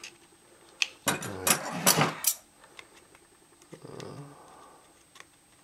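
Scissors cutting tape on a small plastic clamshell pack: snips, clicks and crackling plastic, loudest about a second in and again more faintly about four seconds in.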